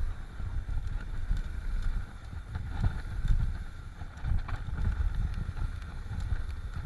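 Wind buffeting the microphone of a handlebar camera on a mountain bike descending a dirt trail, a heavy uneven rumble, with tyres rolling on dirt and short rattles from the bike over bumps.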